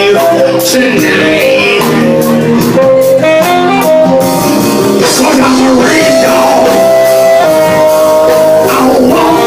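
Live band playing a blues-rock song, with guitar over a drum kit. Regular cymbal strokes run through the first few seconds, and a long held note sounds in the middle.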